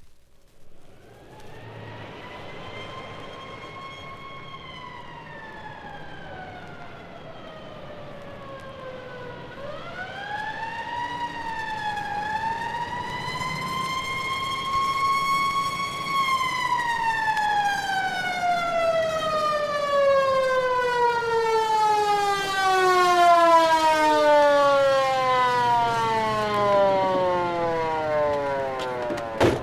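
Mechanical siren winding up and down. It rises, sags, winds up again about ten seconds in, then falls in pitch for a long stretch, growing steadily louder as it winds down.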